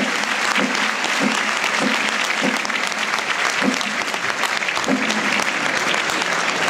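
Large stadium crowd applauding steadily, a dense, even patter of many hands clapping.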